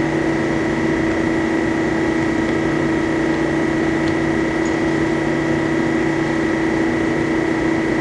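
Harig EZ-Surf surface grinder running with its grinding spindle turning and the hydraulic table reciprocating. It makes a steady machine hum with a constant high whine.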